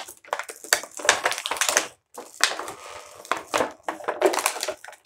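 Plastic toy packaging crinkling and crackling in irregular bursts as it is handled and worked open by hand.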